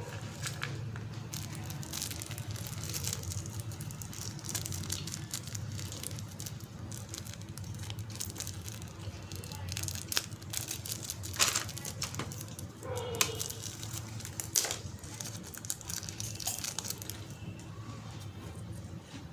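Plastic snack wrappers crinkling and rustling as they are handled, with a few louder, sharper crackles about two-thirds of the way through.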